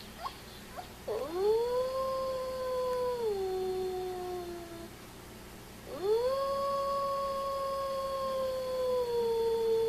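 Great Dane howling: two long howls, each sweeping up at the start, holding a steady pitch and then dropping a step lower, the second starting about six seconds in.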